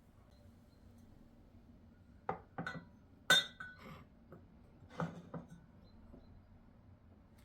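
Glassware clinking: a handful of light knocks over a few seconds, the loudest one about a third of the way in ringing briefly.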